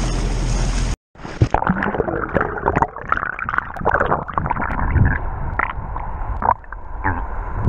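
A camera going from the sea surface to underwater about a second in: wind and surface water noise cut off suddenly and give way to muffled underwater gurgling, bubbles and splashing knocks.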